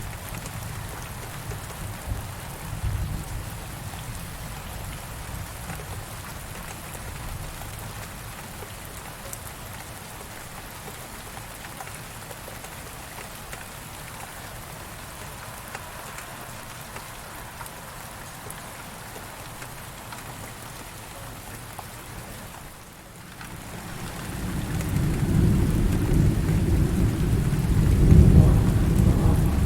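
Heavy rain pouring steadily, with rolling thunder: a low rumble dies away over the first few seconds, then a loud, deep roll of thunder builds in the last few seconds.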